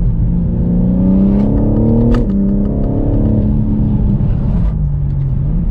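BMW M4 Competition's twin-turbo straight-six accelerating hard, its pitch rising, then dropping sharply with a click on an upshift about two seconds in and climbing again before the driver eases off to a lower, steadier note.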